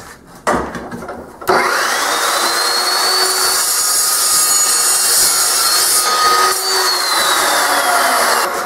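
Evolution dry-cut metal chop saw starting up with a rising whine and its carbide-toothed blade cutting through square steel tubing, a loud steady cutting sound with no sparks, just chips. The motor's tone falls away near the end as the saw is released and spins down. A few light clicks come before it, as the tube is clamped in the saw's vise.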